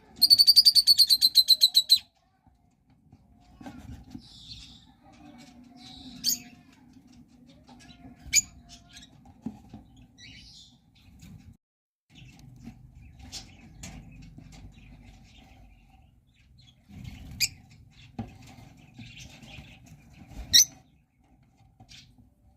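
Lovebirds chirping: a loud, rapid chattering trill for about the first two seconds, then scattered short, sharp chirps and softer calls.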